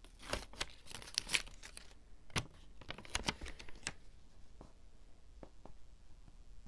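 Paper crinkling and crackling as a sticker's backing paper is peeled off and crumpled in the hand, a rapid run of short rustles over the first few seconds. Then fewer, fainter taps and rubs as the paper sticker is pressed down onto a notebook page.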